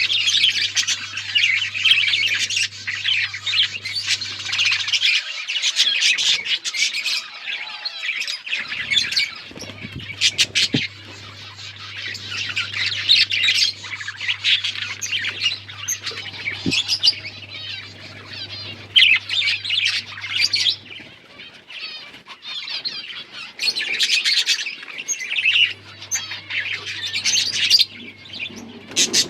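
A flock of budgerigars chattering: many birds at once warbling, chirping and squawking without a break, thinning briefly about two-thirds of the way through.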